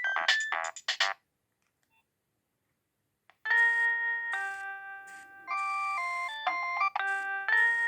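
Nokia 6610 ringtones: one tune of quick short notes ends about a second in. After about two seconds of silence, another starts, a melody of held chime-like notes, several sounding at once, each fading away.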